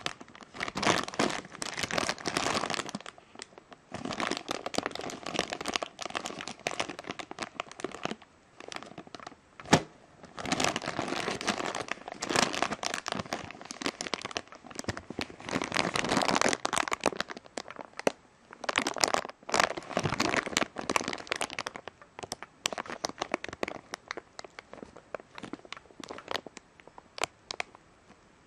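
Clear plastic packaging bag crinkling and crackling in irregular bursts as hands work a figure out of it, with a single sharp click about ten seconds in. The crinkling thins to scattered crackles near the end.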